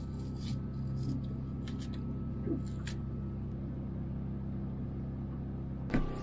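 A few light knife clicks and taps as a green plantain is peeled and cut over a plastic plate, against a steady low machine hum; a short thump near the end.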